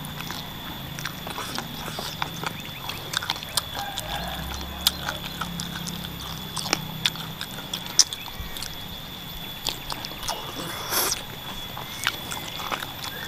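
Close-up eating sounds: wet chewing, sucking and lip smacking on spicy chicken feet and meatballs, with many short irregular clicks and taps.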